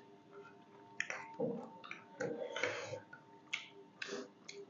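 Quiet eating sounds: scattered clicks of utensils against dishes and a few short chewing and smacking noises.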